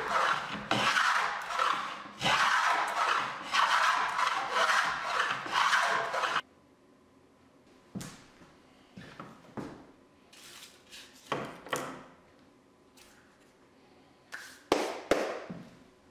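Antique wooden plow plane cutting a groove along a board edge: a series of planing strokes, each about a second long, that cut off abruptly about six seconds in. Then scattered light wooden knocks and taps as the plane is set down on the workbench and the board handled, the loudest pair near the end.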